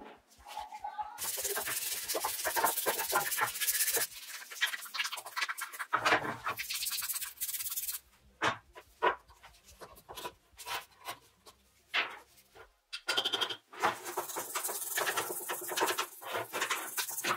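A brush scrubbing a plastic power-tool housing in rapid back-and-forth strokes, with a short break in the middle.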